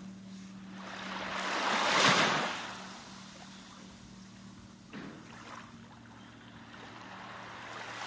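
A soft rush of noise that swells and fades about two seconds in, like surf washing in, over a faint steady hum, with a small click near the middle.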